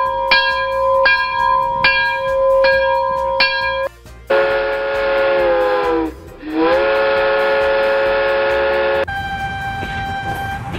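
Train horn and whistle sound effects. A steady whistle tone with a click about every three-quarters of a second comes first. About four seconds in, a multi-note train horn chord sounds for about five seconds, sagging in pitch midway and coming back up. A shorter single-note whistle follows near the end.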